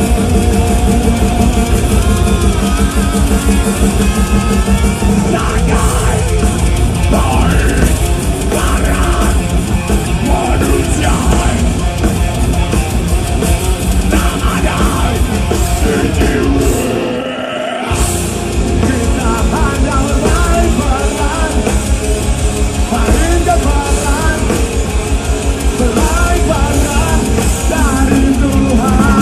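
Metal band playing live and loud: distorted guitars, bass, drum kit and a singer. About seventeen seconds in, the band stops for about a second, then comes back in.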